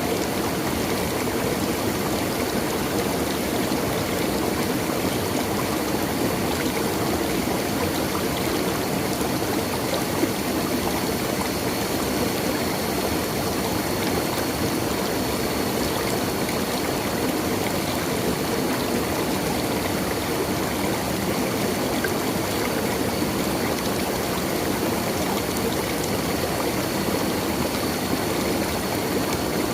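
Stream water flowing steadily, a continuous rush with no pauses.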